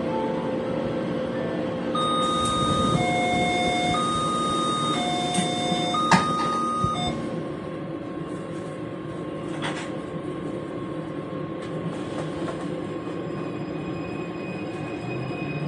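Taipei Metro carriage rumbling steadily, with an electronic two-tone chime alternating low and high notes about once a second for some five seconds: the door-closing warning, ending in a sharp knock. The steady rumble carries on a little quieter afterwards.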